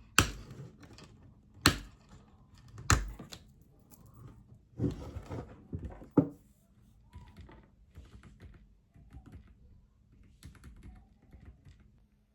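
Typing on a Varmilo Minilo 98 Pro mechanical keyboard with Kailh Prestige Silent switches: soft, irregular keystrokes. A few much louder sharp knocks come in the first six seconds.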